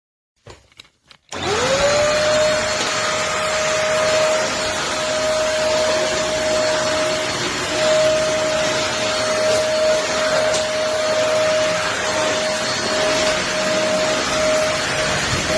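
A few clicks, then a Beldray 2-in-1 stick vacuum cleaner's motor spins up about a second in and runs steadily and loudly, a high whine over a rushing noise.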